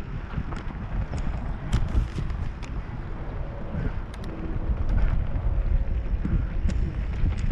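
Wind buffeting a helmet-mounted microphone while riding a mountain bike over a rocky dirt trail, with scattered sharp clicks and rattles from the bike and tyres striking rocks.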